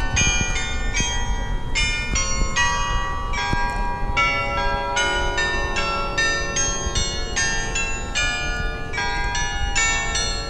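Church-tower carillon bells playing a melody: struck bell notes of many different pitches follow one another several times a second, each ringing on under the next. Low wind rumble on the microphone lies beneath.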